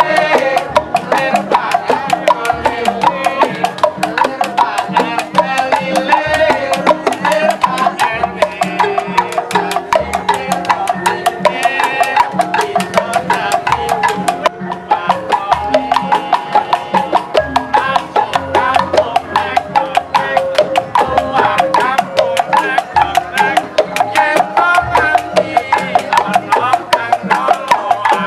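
Music with busy percussion: rapid, evenly repeating strikes over a running line of pitched melodic notes.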